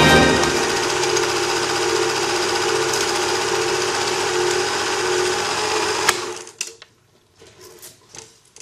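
A small machine whirring steadily with a fast mechanical rattle. It stops with a click about six seconds in, followed by a few faint clicks and knocks.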